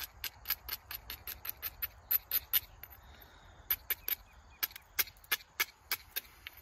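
Edges of a flint preform being ground with an abrader, a run of short, sharp scraping strokes about four a second. The strokes pause briefly a little past halfway, then carry on.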